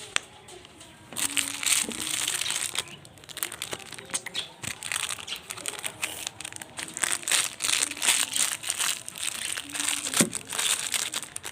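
Slime being squeezed and worked by hand, making dense crackling and popping that starts about a second in.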